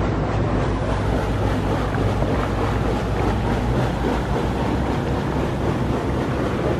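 Boat under way: a steady low engine hum under the rush of water and wind buffeting the microphone.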